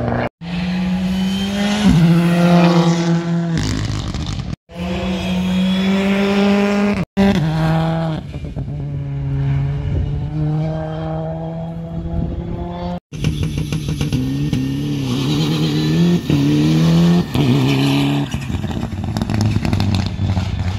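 Rally cars' engines driven hard on a tarmac stage, revs rising and dropping through gear changes as each car passes. The sound cuts off abruptly several times, one pass giving way to the next.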